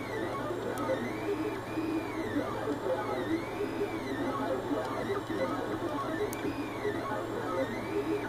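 3D printer stepper motors whining while the print head traces a ring-shaped part. Their pitch rises and falls in repeating arcs, about two a second, over a steady low hum.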